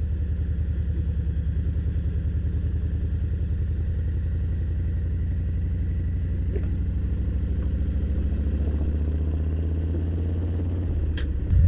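Harley-Davidson Milwaukee-Eight V-twin engine running at low, steady revs with an even exhaust pulse. Near the end the note shifts and dips briefly before the engine picks up.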